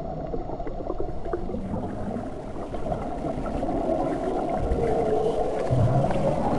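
Muffled underwater ambience: a low rumble with bubbling, a few drawn-out low tones, and a slow rise in loudness.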